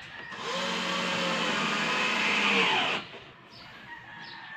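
Cordless drill driving a screw into the cabinet panel, running steadily for about two and a half seconds and then stopping, its pitch falling as the motor winds down.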